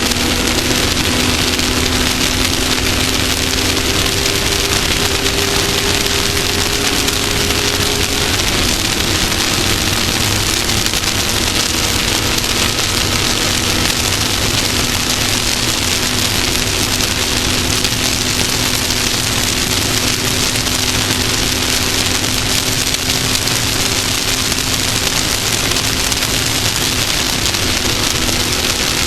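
Off-road race vehicle's engine running steadily under way, its pitch holding with small shifts, under a constant loud hiss of wind and dirt-road noise.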